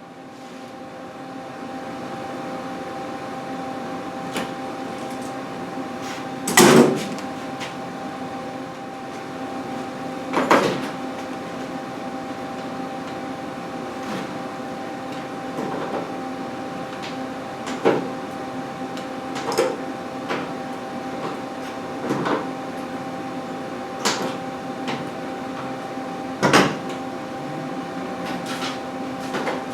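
A steady motor hum comes up at the start and runs on, with sharp knocks on top every few seconds, the loudest about a quarter of the way through.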